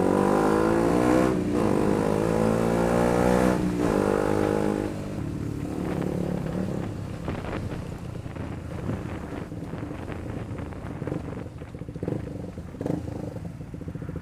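KTM 125 Duke's single-cylinder engine pulling under throttle, its note rising with two brief dips in the first four seconds, then dropping to a quieter, steadier lower note after about five seconds.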